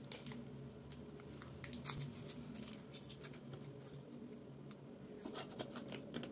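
Faint rustling and small irregular clicks of hands wrapping thin white tape around a battery cell and pressing it into a hair clipper's plastic housing, over a faint steady hum.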